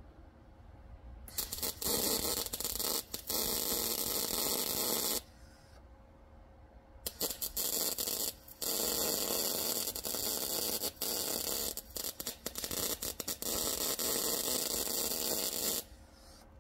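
Electric arc welding on a broken gearbox actuator shaft: two long stretches of steady crackling hiss, the first about four seconds and the second about nine. Each starts with a few stuttering strikes of the arc and cuts off suddenly.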